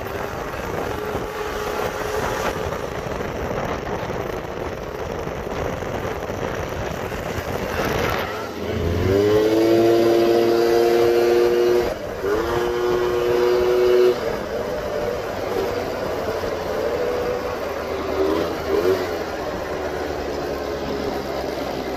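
Two-stroke scooter engines running hard on the road, among them a Piaggio Zip SP fitted with a 172cc big-bore kit. About eight seconds in, an engine climbs quickly in pitch as it accelerates, then holds a loud, high, steady note for several seconds, with a brief dip near the middle, before settling back to a lower drone.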